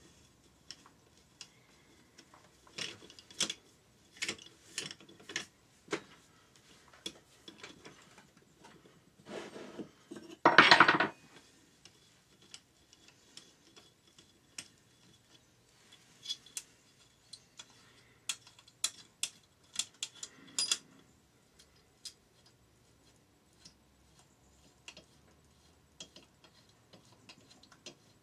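Metal hand tools and engine parts clinking and knocking during the dismantling of a Yamaha XT600 single-cylinder engine's top end, as scattered sharp clicks. About ten seconds in comes one louder rasping burst lasting under a second.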